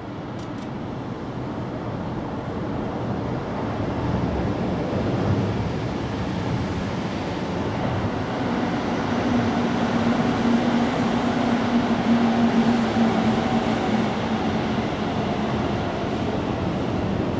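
Steady rumble of a passing vehicle, growing louder over the first few seconds, with a low hum in the middle.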